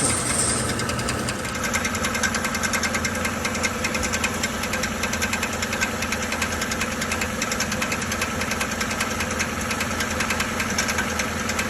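Running 5.3-litre V8 engine of a 2013 Chevrolet Silverado 1500 with a rapid, even knocking rattle. The customer had been told the knock meant a cracked flywheel or an internal engine problem, and the flywheel area is the first suspect.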